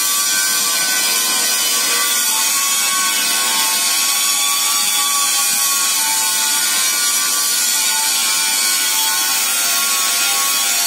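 Industrial mixer running unloaded, its agitators spinning in an empty bowl: a steady mechanical whine from the motor and drive over a constant hiss.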